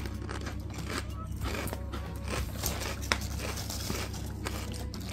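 Potato chips being bitten and chewed: a run of crisp, crackling crunches, with one sharp crunch about three seconds in, over background music.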